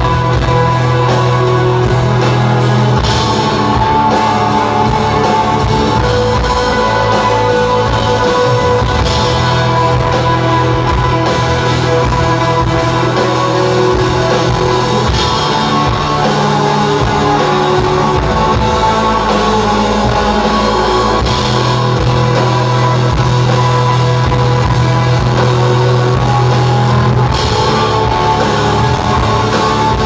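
Shoegaze band playing live, loud: sustained, washy electric guitars over held bass notes, with a cymbal crash about every six seconds.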